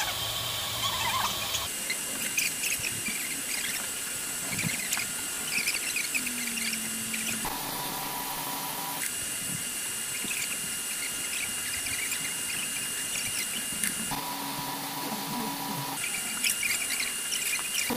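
Kaleido M10 Pro drum coffee roaster running, its motor and fan humming, with many small irregular clicks and pops from the beans in the drum. The steady hum changes pitch abruptly several times.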